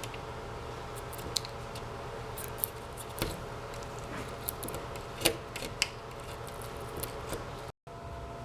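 Scattered short sharp clicks and snips from small hand work, over a steady electrical hum.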